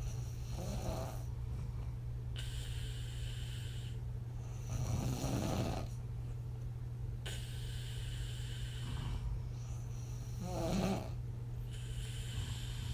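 A woman snoring on her back, blowing her breath out through her lips. Slow, regular breaths every four to five seconds alternate rattly snores with airy puffs.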